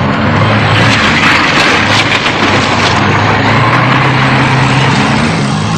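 Heavy truck engine running loud and steady, its pitch rising a little about three and a half seconds in, with rattling and road noise over it.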